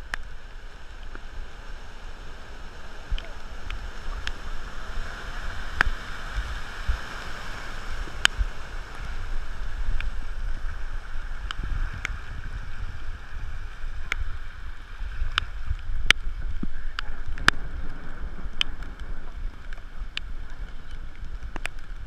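Floodwater running across a street, with low wind rumble on the microphone and scattered sharp clicks about once a second.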